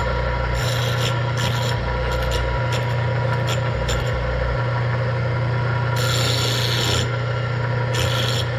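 Bench grinder motor running with a steady hum while a homemade wheel dresser is worked back and forth across the spinning grinding wheel. It makes scratchy, rasping bursts of uneven length, the longest about six seconds in. The wheel's face is being dressed true.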